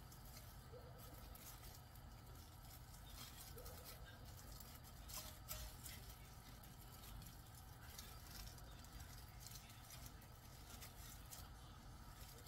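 Near silence over a low steady hum, with faint crackling rustles of dry, oil-brushed laver sheets being turned and pressed in a frying pan by plastic-gloved hands; a couple of slightly louder rustles come about five seconds in.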